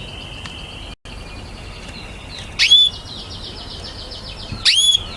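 Canaries singing in fast trilled phrases, with two loud, sharp chirps: one just under three seconds in and one near the end. The sound cuts out for a split second about a second in.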